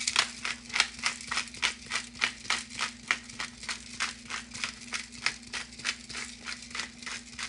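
Pepper grinder being twisted over a bowl, a steady run of short crunching grinds about three a second.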